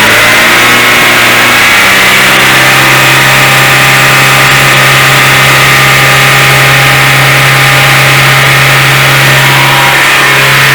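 Citroën C3 1.6 16-valve four-cylinder engine held at about 4000 RPM for an oil-pressure test. The revs climb slightly at the start and then hold steady.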